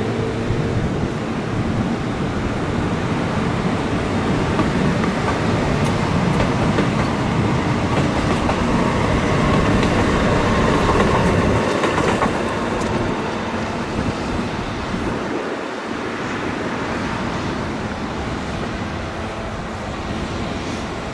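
Two-car Siemens-Duewag U2A light rail train passing close by, its steel wheels rumbling and clicking over the rails. The noise builds to its loudest about halfway through, then eases off to a lower steady rumble for the last few seconds.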